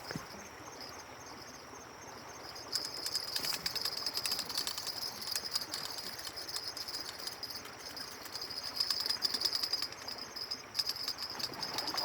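An insect trilling steadily at a high pitch, a fast fine pulsing that starts about three seconds in, over faint outdoor background noise.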